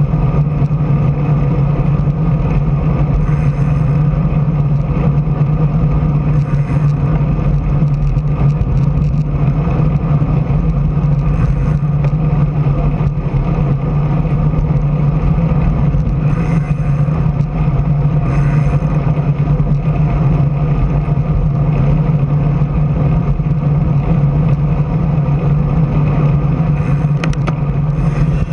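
Loud, steady rumble of wind and road noise on a camera moving along at riding speed, with no break or change.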